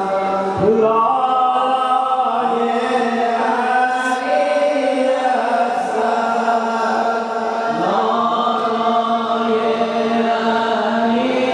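Several men chanting a noha, a Shia Muharram lament, together into microphones, in long held notes that move slowly in pitch.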